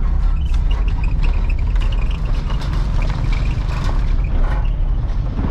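Steady low rumble of a car running.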